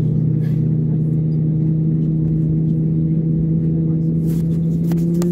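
Steady drone of an Airbus A320neo's engines at taxi power, heard inside the cabin: a low hum with a couple of steady tones over a rumble. A few faint clicks come near the end.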